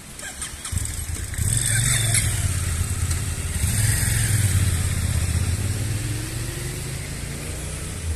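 A military vehicle's engine passing by: it comes in about a second in, is loudest for the next few seconds, then slowly fades away.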